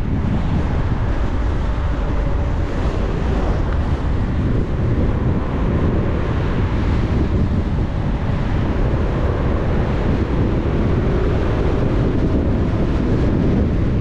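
Steady rumble of a moving car's road and engine noise, with wind buffeting the microphone.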